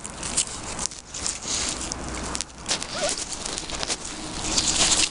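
A puppy nosing and shuffling through dry grass with patches of snow: irregular rustling and crackling with many small clicks, and a faint short squeak about three seconds in.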